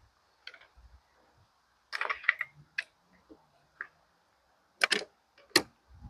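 Irregular sharp knocks and clicks from nailing together a rough-sawn lumber framing base: a loud cluster about two seconds in, a few lighter clicks, then two loud sharp strikes near the end.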